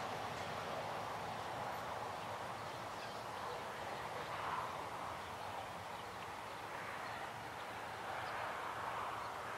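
Faint, steady outdoor background noise, slowly easing, with no train passing.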